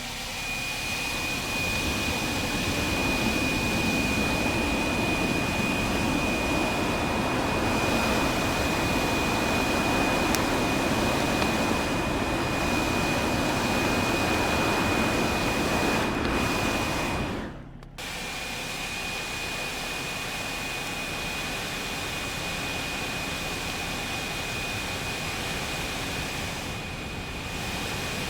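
Leaf blower running steadily with a high whine over a rush of air, blowing into a brush pile to fan its bed of coals into flame. It cuts out briefly a little past halfway, then runs on a bit quieter.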